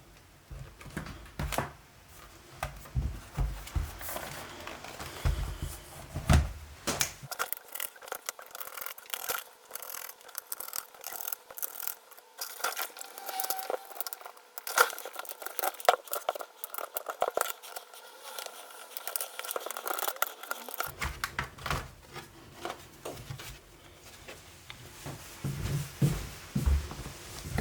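Small clicks, scrapes and rubbing of tools and hands working on a laptop's case, many short irregular handling noises.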